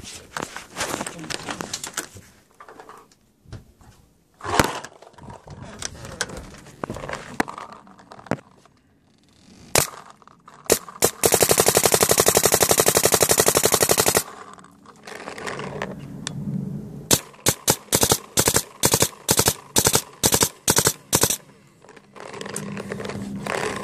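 Luxe electropneumatic paintball marker firing. A long, very fast burst of shots lasts about three seconds, starting about 11 s in. It is followed by a string of rapid single shots a few seconds later and more near the end, with irregular knocks of handling before the firing.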